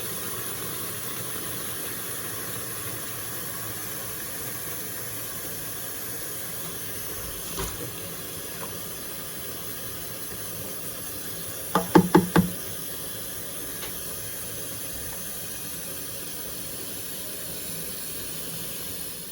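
Very hot water running steadily from a tap into a tub as it fills. There is one knock a little before halfway and a quick run of four or five knocks just past halfway.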